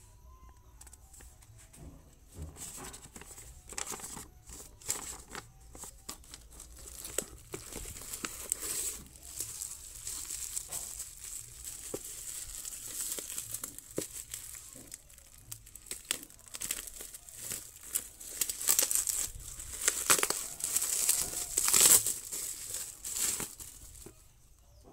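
Plastic bubble wrap being unwrapped and crumpled by hand: irregular crinkling and crackling, growing loudest near the end.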